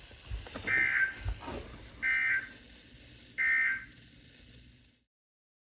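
NOAA Weather Radio sending the Emergency Alert System end-of-message code after a severe thunderstorm warning: three short, identical digital buzzes about a second and a half apart, marking the end of the alert.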